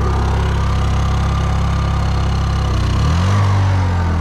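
Honda inverter generator engine running steadily under a load of halogen work lights. About three seconds in, its note rises and settles at a higher, steady pitch.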